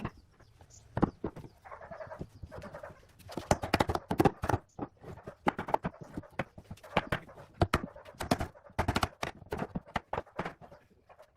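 A rapid, irregular series of sharp knocks and taps, with chickens clucking in the background.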